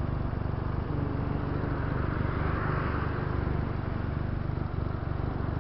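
Benelli TNT300's 300 cc parallel-twin engine idling steadily, with a hiss swelling briefly about halfway through.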